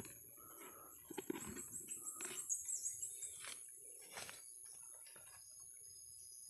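Soft clicks and rustles of hands handling freshly picked mushrooms in a plastic bucket and in dry leaf litter. About two seconds in, a quick run of short, very high bird chirps sounds over the handling.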